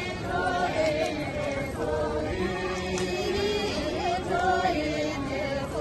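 A group of voices singing a Tibetan dro dance song together, a chant-like melody of long held notes.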